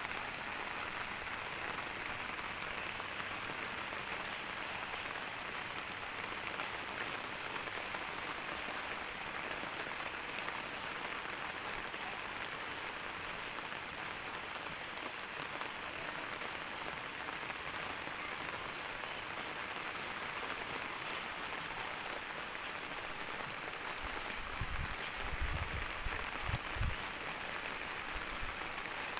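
Steady rain falling, an even hiss of drops on surfaces. Near the end come a few brief low bumps.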